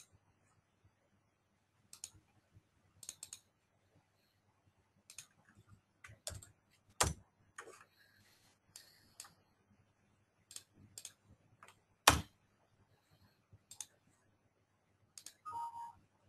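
Faint, scattered computer mouse clicks and keyboard keystrokes from someone working a software form, with a louder click about 7 and 12 seconds in. Near the end comes a brief tone, the Windows alert of a pop-up message box.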